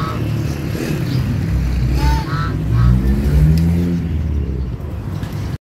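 Busy road traffic rumbling, with a vehicle engine revving up and rising in pitch about three seconds in. The sound cuts off abruptly near the end.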